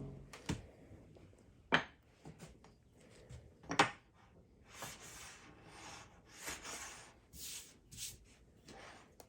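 Workshop handling sounds on wood: two sharp knocks about two seconds apart, then several soft rubbing swishes.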